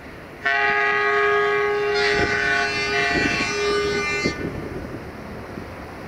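Air horn of a 060-DA (Sulzer LDE2100) diesel-electric locomotive sounding one long blast of about four seconds, which starts and stops abruptly. A second, higher horn tone joins about a second and a half into the blast, making a two-tone chord.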